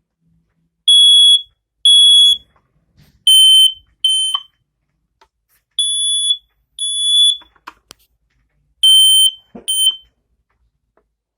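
Several smoke alarms sounding on their test buttons, each giving high-pitched beeps in pairs, the pairs at slightly different pitches from one unit to the next. A few sharp clicks fall between the later beeps.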